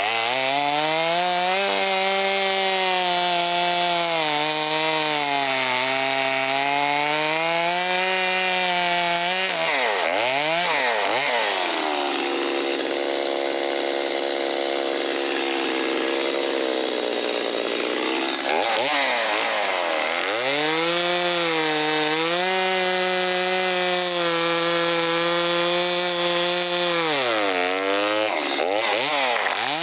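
Stihl 025 two-stroke chainsaw cutting hard wood at high revs. Its pitch sags under load and drops off sharply several times before revving back up. It is a high-revving saw with little torque, easily bogged in a cut this hard.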